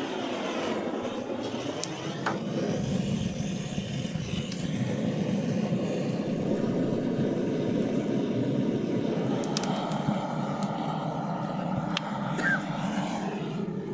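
Butane-canister blowtorch burning with a steady rushing hiss as its flame is held into firewood to light it, getting louder about two seconds in, with a few sharp clicks.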